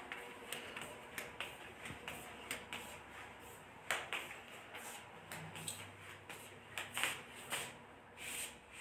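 Light footsteps on a hard indoor floor, with clicks from the phone being handled. They make irregular sharp taps, roughly two a second, over faint room hiss.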